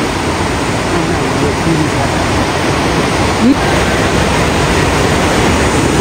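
A large, fast river rushing: a loud, steady rush of water, the river being big and in a dangerous state.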